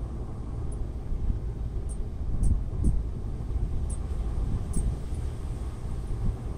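Steady low rumbling background noise, with a few faint, short high clicks scattered through it and a couple of soft low thumps near the middle.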